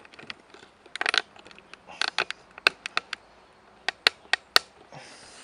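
Hands handling wires and a throttle cable at the engine of a backpack brush cutter: scattered sharp small clicks and rustles, coming in little clusters about once a second.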